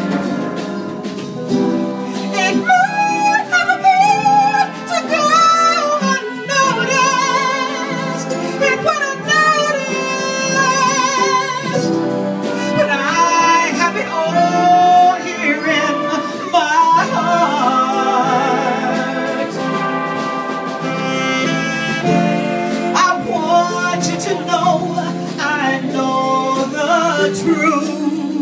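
Live big band with saxophones and brass playing behind a woman singing into a microphone.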